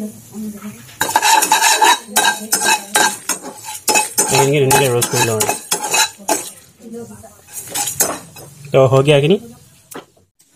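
A metal spatula scrapes and clinks repeatedly against a non-stick kadai, stirring whole cumin, coriander seeds and dried red chillies, with a sizzle under it as the spices roast.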